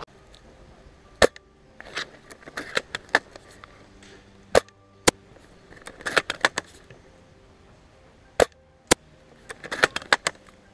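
Airsoft guns firing: sharp single pops and short irregular clusters of shots.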